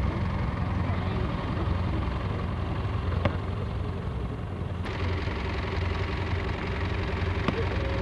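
Tractor engine running steadily with a low, even hum, and a couple of faint clicks.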